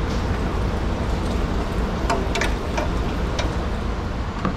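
A few short light clicks and taps from a pry bar working at the stuck timing chain cover of a Subaru 2.5 engine, over a steady background hum.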